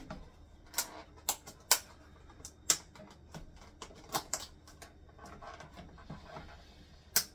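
Snap-on lid of a plastic compartment meal container being pried open: a series of sharp, irregular plastic clicks and snaps.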